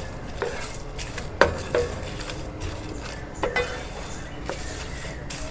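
Whole spices dry-roasting in a pan, stirred with a utensil that scrapes and knocks against the pan about six times.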